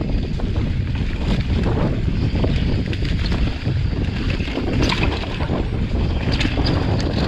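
Mountain bike riding down a leaf-covered dirt trail: a steady rumble of wind buffeting the camera's microphone, with scattered crackles and clicks from the tyres rolling over dry leaves and rocks and the bike rattling over the bumps.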